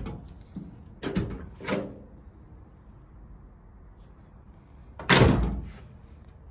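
Door of a 1957 Chevrolet Bel Air convertible being worked: two lighter knocks about a second in, then a loud slam as it shuts, the loudest sound, a little after five seconds.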